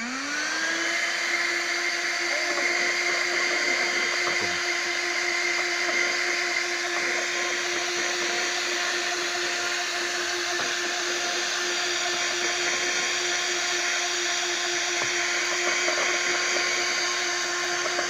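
12-volt handheld car vacuum cleaner switching on, its motor spinning up with a rising whine in the first second, then running at a steady pitch.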